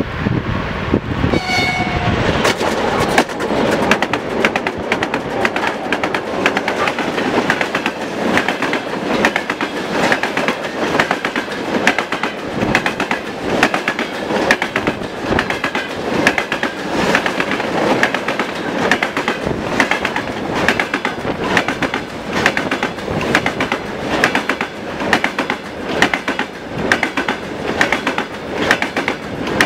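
A 3TE10M three-section diesel locomotive passes hauling a freight train, with a short horn blast about a second in. After it, a long string of hopper wagons rolls by, the wheels clattering rhythmically over the rail joints.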